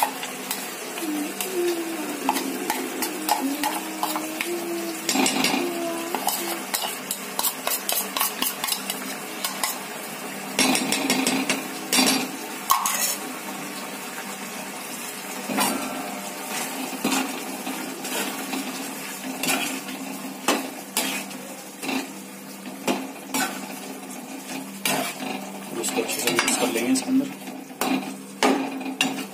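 A metal spoon stirring and scraping through thick gravy in a metal kadhai, with frequent irregular clinks of spoon against pan.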